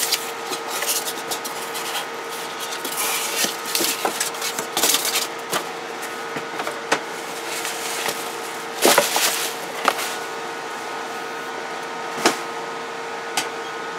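Cardboard shipping box, newspaper and foam packing being handled and pulled apart: irregular rustling and scraping with a few sharp knocks in the second half, over a steady hum.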